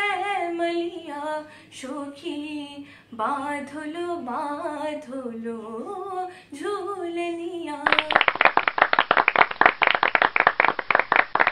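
A girl singing solo, unaccompanied, in a high, wavering melodic line with short breaks between phrases; about eight seconds in the singing stops and applause starts.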